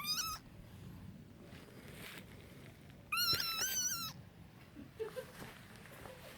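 Frog squeaking, a distress scream given when it is disturbed: a short high-pitched squeak at the start, then a longer, wavering cry about three seconds in.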